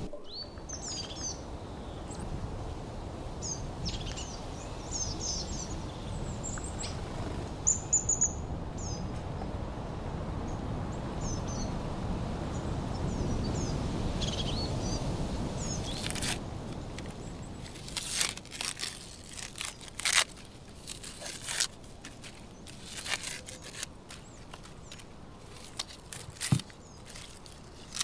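Small birds chirping over a steady low background noise outdoors. About halfway through, the low noise drops away and a string of sharp clicks and knocks begins, irregular and at times louder than the birdsong.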